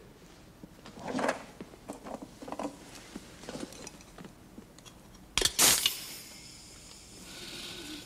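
Film soundtrack played over a hall's speakers: a can of Perri-Air canned air is fumbled with, then opened with a short, loud hiss about five and a half seconds in. Near the end comes a long breath drawn in from the can.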